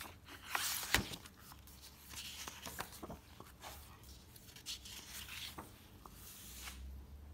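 Paper pages of a picture book being turned and smoothed flat by hand: soft, intermittent rustling with a sharp tap about a second in.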